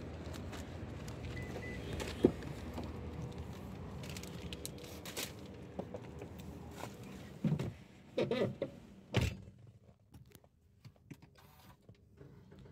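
A Suzuki Ciaz's driver door opened and a person climbing into the seat with a few knocks and rustles, then the door shutting with a thump about nine seconds in; after it the outside noise drops away to the quiet of the closed cabin.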